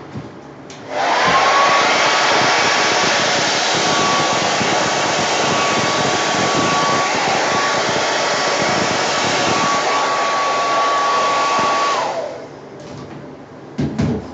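Hair dryer switched on about a second in and run steadily, a rush of air with a steady motor whine, then switched off near the end, the whine dropping away as it spins down.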